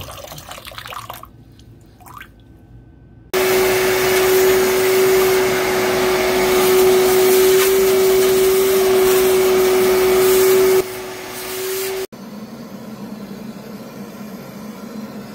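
Vacuum cleaner running with a steady whine over a loud rush of air, switched on about three seconds in. Near the end it drops in level for about a second, then cuts off suddenly.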